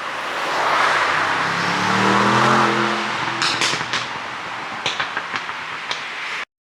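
Mercedes-AMG S63's 4.0-litre twin-turbo V8 with a Brabus exhaust revving up, its note rising, then a string of sharp exhaust pops and crackles as the throttle closes, from an ECU pop tune.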